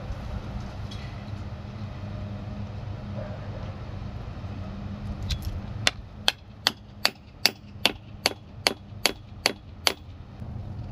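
Hammer driving a wooden stake into the soil: a run of about eleven sharp, evenly spaced strikes, a little over two a second, starting about six seconds in.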